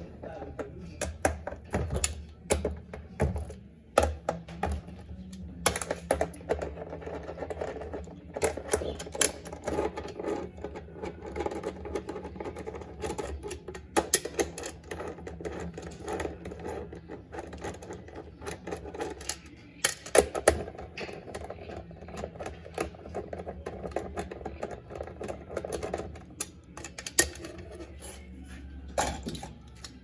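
Hand screwdriver turning screws on the steel mounting plate of a top-load washing machine's gearbox and motor: a run of irregular metallic clicks and taps over a low steady hum.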